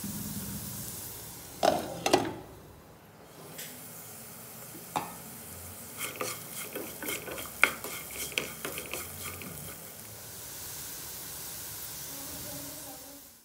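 Potato cubes sizzling in oil in a non-stick frying pan while a wooden spatula stirs and scrapes them, with a few sharper knocks of the spatula against the pan, the loudest about two seconds in. The sizzle cuts off suddenly at the end.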